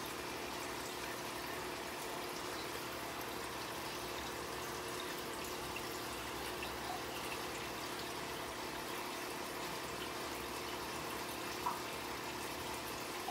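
Aquarium water circulation, likely from the tank's filter: a steady trickle of running water with a faint hum underneath.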